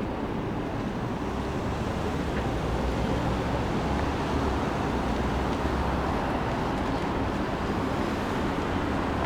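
Steady rumbling vehicle noise in a busy transit station's ambience, growing a little louder about three seconds in.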